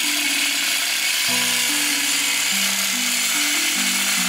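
Background music with a bass line that steps between notes, laid over the steady high buzz of a reciprocating saw cutting through a steel exhaust pipe at the muffler joint.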